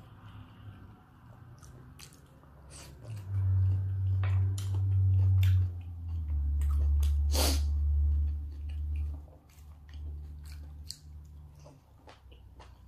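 Close-miked chewing of raw salmon sashimi: repeated wet mouth clicks and smacks, one louder click about seven and a half seconds in. A low steady hum comes in about three seconds in and fades out around nine seconds.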